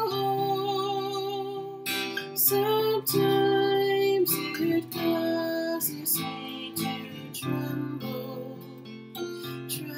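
Acoustic guitar strummed slowly, with a woman singing long held notes. It grows quieter through the second half.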